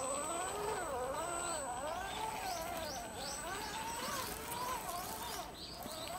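Electric motor and gears of an Axial SCX10 II 1:10 RC rock crawler whining, the pitch rising and falling over and over as the throttle is worked while it crawls over rocks. Birds chirp in short rising calls alongside.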